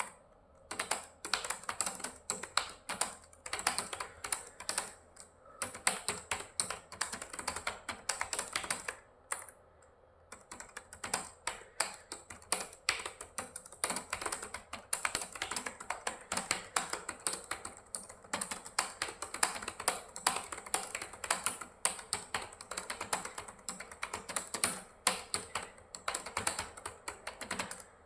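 Fast, continuous typing on a computer keyboard, rapid key clicks in quick bursts with a short pause about nine seconds in.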